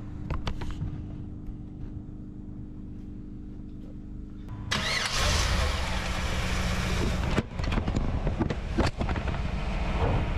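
A 1994 Camaro Z28's 5.7-litre LT1 V8 starts about four and a half seconds in and keeps running. This is the first start after an Optispark distributor replacement and a coolant refill.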